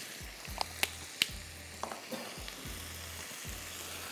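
Chicken sausage, onion and mushroom filling sizzling steadily in a frying pan while it is seasoned and stirred with a spatula, with a few sharp taps against the pan in the first two seconds.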